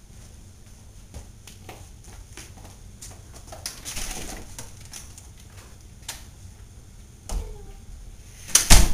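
Light scattered knocks and shuffling of someone walking indoors while carrying a rubber balloon, then a sudden thump about seven seconds in and a louder, sharp bang just before the end.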